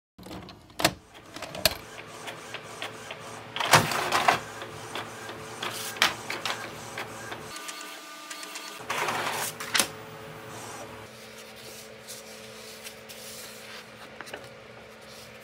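Epson EcoTank inkjet printer printing a page: sharp clicks and clatters, louder mechanical passes about four and nine seconds in, then a quieter steady hum.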